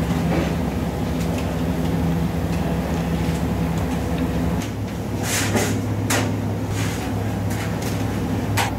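Restaurant kitchen noise: a steady low machine hum that drops in pitch about halfway through, with scattered clicks and clatter of kitchen work.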